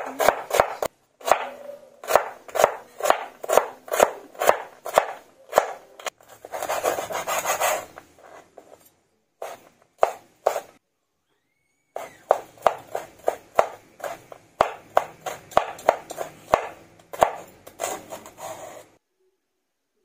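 Chef's knife chopping food on a wooden cutting board, carrots and then cooked meat: an even run of knocks about three a second. A longer stretch of continuous scraping noise comes about a third of the way in, and the chopping stops a second before the end.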